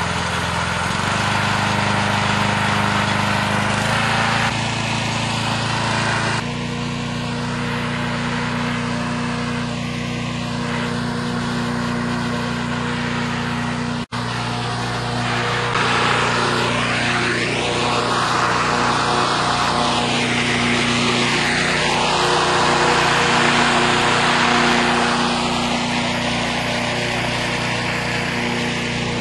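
Petrol-engine hot-air-balloon inflator fan running steadily, blowing cold air into the balloon envelope during cold inflation. Its pitch steps a few times in the first several seconds, and the sound cuts out for an instant about halfway through.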